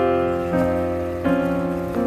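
Background piano music, slow notes and chords, over a soft steady hiss.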